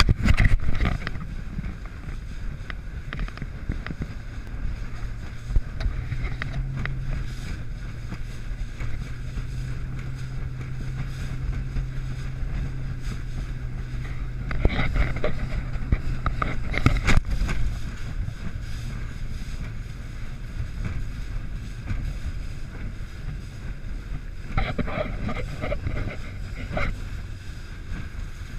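Ranger Comanche bass boat running fast across choppy water: the steady drone of its outboard motor under the rush of wind and water, with a few louder splashes as the hull hits waves around the middle and near the end.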